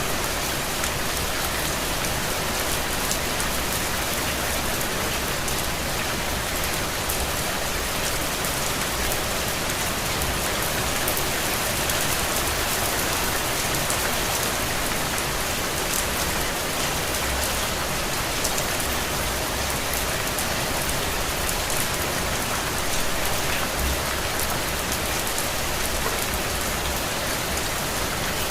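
Steady rain falling, an even hiss of many drops pattering on a surface.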